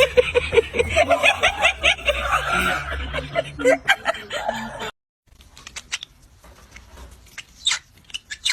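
Rapid, loud laughter for about five seconds, cutting off abruptly. It is followed by a quieter stretch with a few faint clicks and short high chirps.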